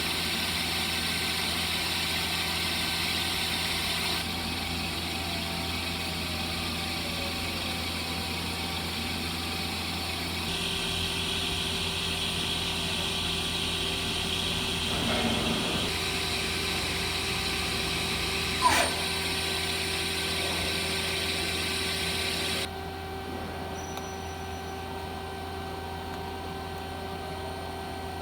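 A 2003 Yamazaki Mazak Quick Turn Nexus 250 CNC lathe running: a steady machine hum made of several tones. The hum changes abruptly three times, and there is a single sharp click about two-thirds of the way through.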